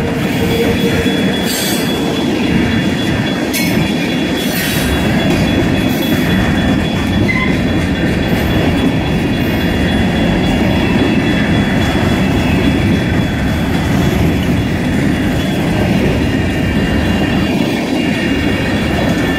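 Freight train of covered hopper and tank cars rolling past at close range: a steady rumble of steel wheels on rail with a thin, steady high-pitched wheel squeal over it and a few clicks from the rail joints in the first few seconds.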